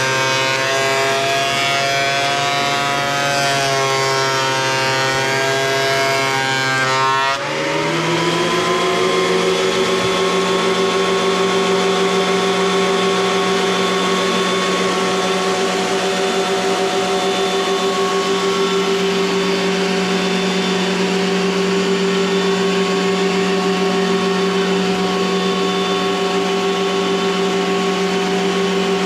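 Craftsman thickness planer's motor and cutterhead running under load as a rough chainsaw-milled plank feeds through, the pitch low and wavering. About seven seconds in, the pitch rises quickly and settles into a steady whine as the board clears and the planer runs free.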